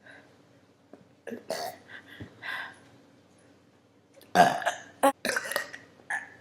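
A girl burping several times, the loudest burp about four seconds in.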